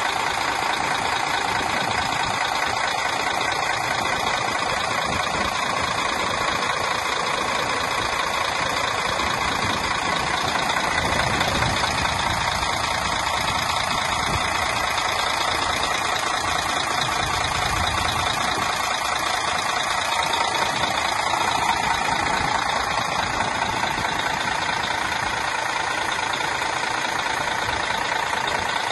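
Mercedes-Benz Tourismo coach's rear-mounted diesel engine idling steadily, heard close up at the open engine bay.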